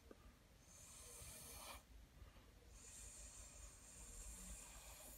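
Faint, airy hiss of breath blown through a drinking straw onto wet acrylic paint, in two puffs: a short one about a second in, then a longer one lasting about two and a half seconds.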